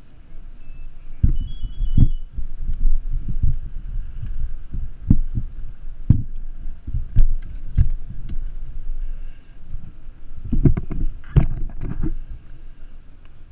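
Muffled, irregular low thumps and rubbing on a body-worn action camera's microphone as the wearer moves in turnout gear, with scattered sharp clicks and a denser run of knocks near the end.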